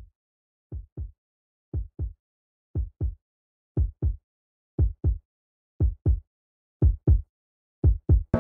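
Heartbeat sound in the score: paired low thumps, like a lub-dub, about once a second, growing steadily louder.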